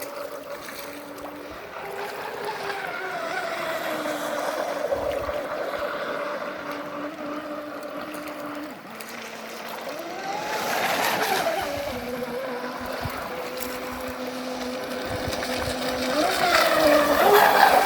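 Traxxas M41 remote-control boat's brushless electric motor whining as it runs on the water, its pitch stepping up and down with the throttle. It grows louder with a rising-then-falling pitch about ten seconds in, and again near the end.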